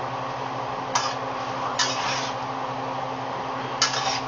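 Spaghetti being tossed with a utensil in a stainless steel skillet: short scraping swishes about one, two and four seconds in, over a steady low hum.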